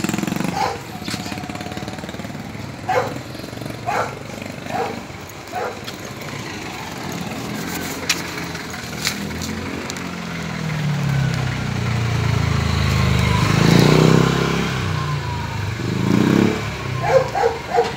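A motor vehicle passing along the street, its engine building over several seconds, loudest a little past the middle, then fading. Short calls break in several times, with three in quick succession near the end.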